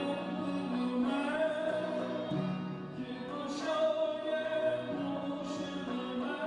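Persian vocal music: a voice singing long held notes over a steady accompaniment.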